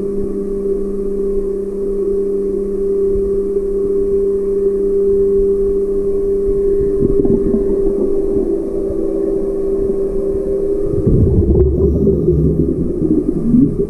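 Steady motorboat engine hum carried through the water, heard underwater at one constant pitch. About eleven seconds in, a louder low rumble joins it.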